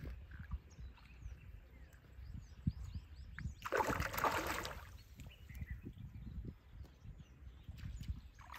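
A rohu fish thrashing at the surface inside a mesh net at the water's edge: one loud splashing burst about four seconds in, lasting about a second. Low wind rumble on the microphone throughout.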